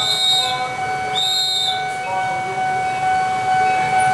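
Two short, shrill blasts on a hand whistle, the second about a second after the first, blown as a warning at a railway level crossing as a train approaches. A steady electronic warning tone from the crossing alarm sounds underneath.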